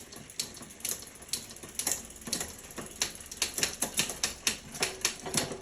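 Bicycle rapid-fire trigger shifter clicking through the gears one at a time: a quick series of sharp clicks, coming faster toward the end, as the 11-speed chain is moved across the cassette by the rear derailleur.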